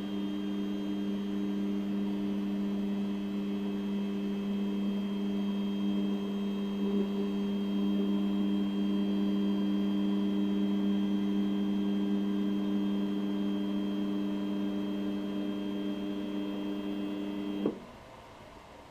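MakerBot 3D printer making a steady, even-pitched grinding noise that cuts off suddenly near the end.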